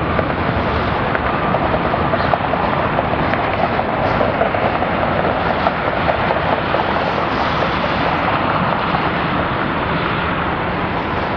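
Steady, loud jet engine noise from airliners on the airfield, an even rushing sound with no breaks.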